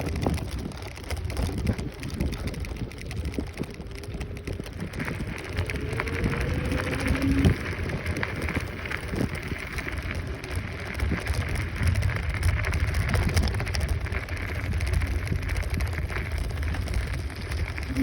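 Wind rumbling on the microphone with tyre and road noise from a Kaabo Wolf Warrior 11 Pro electric scooter on the move, a steady hiss over a low rumble. A faint higher hum joins about five seconds in.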